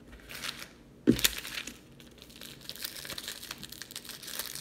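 A small cleaning-wipe packet from a screen-protector kit crinkling as it is handled and opened. There is a single knock about a second in, the loudest sound.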